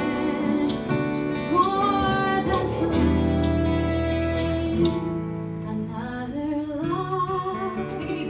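A woman singing a ballad into a microphone over a strummed guitar. The strumming stops about five seconds in, and she carries on with long held notes with vibrato.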